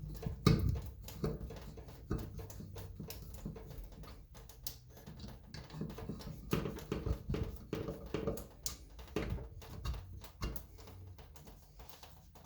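Irregular clicks and knocks of small hard parts being handled and fitted.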